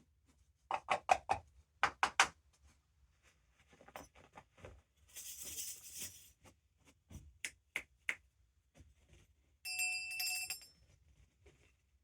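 A string of assorted studio sound effects: quick clusters of sharp clicks and knocks, a short hiss about five seconds in, more scattered taps, then a brief high metallic ringing near the end, like a small bell.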